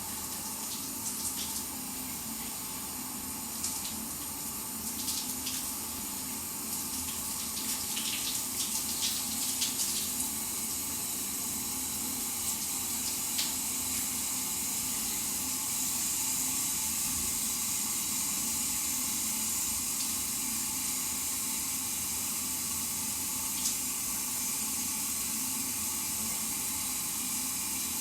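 Shower running: a steady hiss of spraying water, with brief irregular splashes in the first ten seconds or so.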